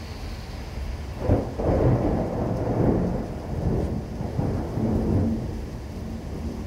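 Thunder from a severe thunderstorm: a sudden sharp crack about a second in, then rumbling for about four seconds, dying away near the end.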